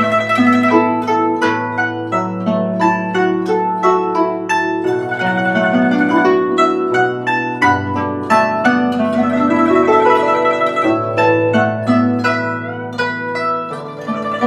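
Guzheng (Chinese zither) playing a flowing melody, a quick run of plucked notes over sustained low notes.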